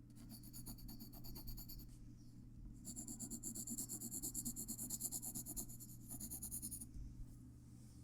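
Graphite pencil shading on paper: rapid back-and-forth strokes in two runs, a short one and then a longer, louder one after a brief pause.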